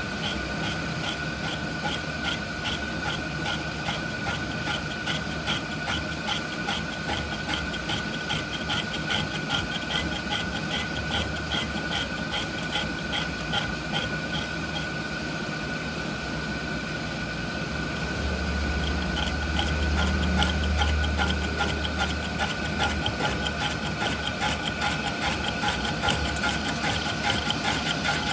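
A machine running steadily with a constant whine and a fast rhythmic ticking. A deeper rumble swells for a few seconds about two-thirds of the way through.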